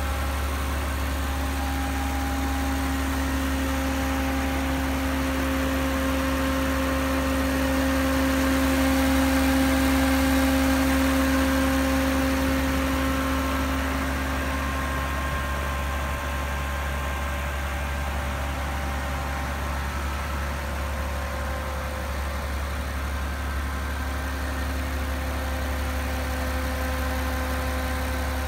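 Mercedes-AMG G65's 6.0-litre twin-turbo V12 idling steadily with the hood open, a low even hum with a steady whine on top that swells about a third of the way through and then fades back.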